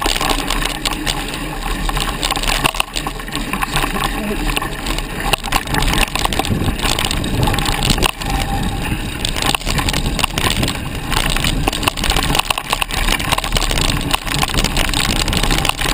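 Mountain bike ridden fast over a rough dirt trail: tyres crunching on the ground and the bike clattering over bumps in many short knocks, over a steady rush of air on the camera's microphone.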